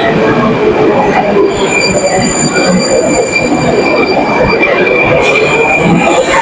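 Subway train running on the rails, a steady rumble with the wheels squealing in a high steady tone from about a second and a half in until just before the end.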